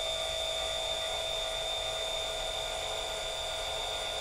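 Celestron CGX-L equatorial mount's motors slewing the telescope in right ascension: a steady motor whine of two held tones, one high and one lower, over a low rumble.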